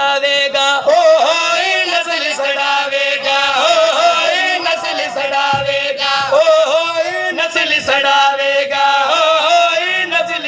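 Men's voices chanting a nauha, a Shia devotional lament, in a rhythmic sung recitation into a microphone, with a steady held tone underneath.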